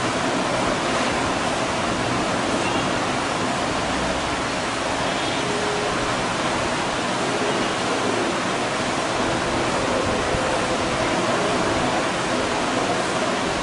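A steady, even rushing noise like moving air, with no pauses and no distinct knocks.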